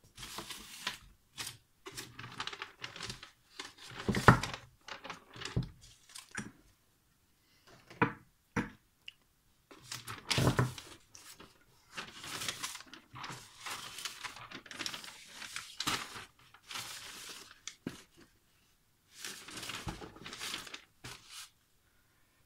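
Paper rustling and crinkling in irregular bursts, with a few louder knocks.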